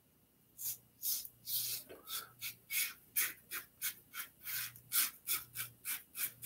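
Timeless Titanium .68 solid-bar safety razor with a Gillette Nacet blade scraping through lathered stubble on the cheek and jaw in short, quick strokes. The rasping strokes begin about half a second in and come roughly three a second.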